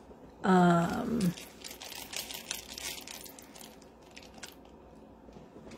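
Packaging crinkling and rustling as it is handled: a run of small crackles through the middle, after a brief spoken word about half a second in.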